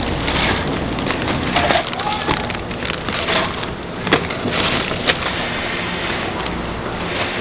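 Thin, crisp traditional Korean crackers clattering and rustling against each other as they are scooped by gloved hands into plastic bags, mixed with the crinkle of the plastic bags. The sound is a dense, irregular crackle of many small sharp clicks.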